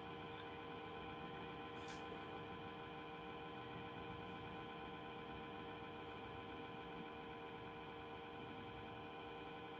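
Faint steady hum made of several held tones, unchanging throughout, with one brief click about two seconds in.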